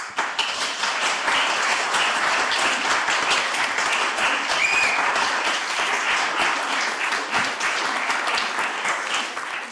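Audience applause: dense, steady clapping of many hands that fades away at the very end.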